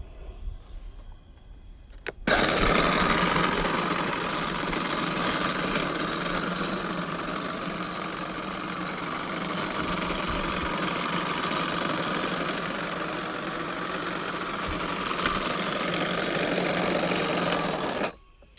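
Electric hedge trimmer switched on about two seconds in, its motor and reciprocating blades running at a steady, even buzz for about sixteen seconds, then switched off abruptly.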